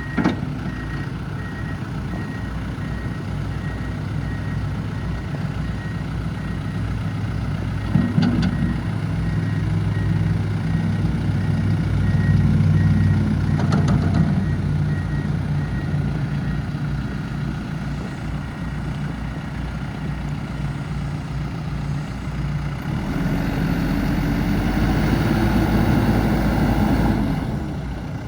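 2024 John Deere 320P backhoe loader's diesel engine running, speeding up and working harder about eight seconds in and again for several seconds near the end, with a couple of knocks. A faint, evenly spaced beeping sounds through the first half.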